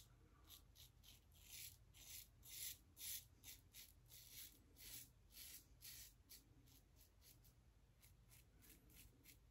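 Double-edge safety razor scraping through stubble on a lathered neck in short, repeated upward strokes, about two or three a second, faint and raspy. The strokes die away after about six and a half seconds.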